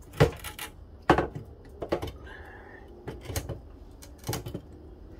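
Hard knocks and clunks of a small motorcycle engine being worked by hand into the bike's frame, its cases bumping against the frame tubes: about five sharp knocks, irregularly spaced.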